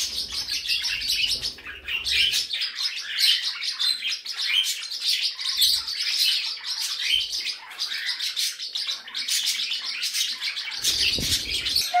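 A roomful of small pet parrots and parakeets chirping and chattering all at once, a dense, unbroken run of short high chirps.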